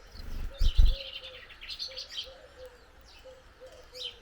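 Small garden birds chirping at a feeder in quick short bursts, busiest in the first couple of seconds. About half a second in come two loud low thumps close to the microphone on the feeder pole.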